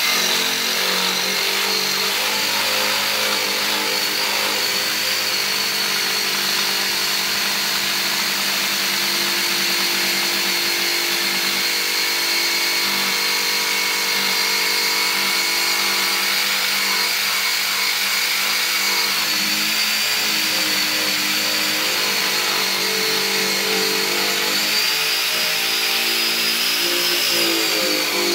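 Corded Harbor Freight variable-speed drum sander running steadily against a steel panel, taking old paint down to bare metal, with a constant high motor whine. Its lower tones waver in the last few seconds.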